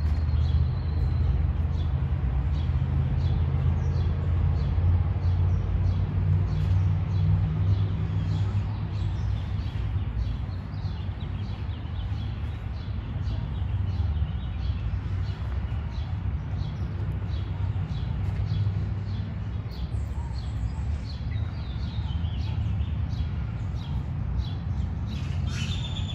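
Small birds chirping in many short calls over a steady low rumble.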